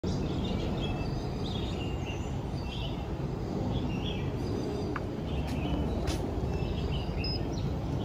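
Birds chirping and calling over a steady low background rumble, with a few light clicks around the middle.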